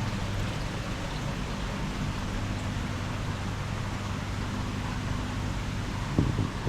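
Steady low machine hum over an even rushing noise, like aquarium pumps and circulating water in a tank room, with a brief low thump about six seconds in.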